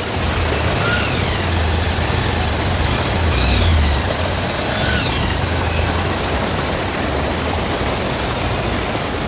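Motorcycle engine running low under load as the bike is ridden through a shallow stony river, working free after getting stuck, with water rushing and splashing around the wheels. The engine gets louder between about one and a half and four seconds in.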